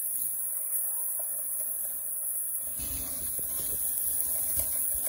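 Food sizzling on a hot flat iron griddle: a steady hiss, with some knocking and rubbing of metal utensils on the griddle past the halfway point.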